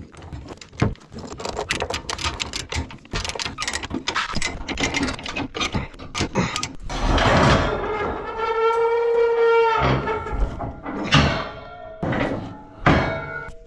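Rapid clicking of a ratchet chain binder being cranked to tighten the chains holding a mini excavator down on a trailer. About seven seconds in comes a steady high tone lasting about two seconds, then a few louder knocks.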